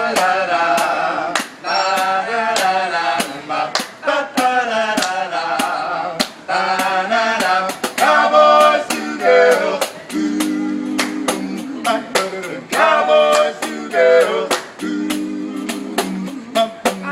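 A song: a male voice singing over instruments, with a steady percussive beat.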